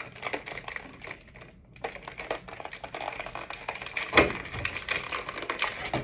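Clear plastic packaging crinkling and crackling in rapid irregular clicks as it is handled, with a short pause just before two seconds in and a louder knock a little after four seconds.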